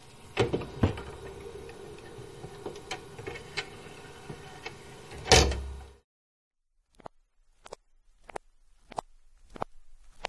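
Scattered knocks and clicks over a low rumble, with one loud thump about five seconds in. The sound cuts off, and about a second later sharp clicks start again, evenly spaced about two-thirds of a second apart.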